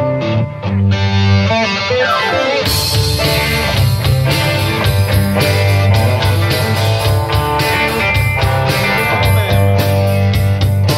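Live rock band playing through a PA: electric guitar opens alone with a note sliding down in pitch, then about two and a half seconds in the drums and cymbals come in and the full band plays on with a steady beat.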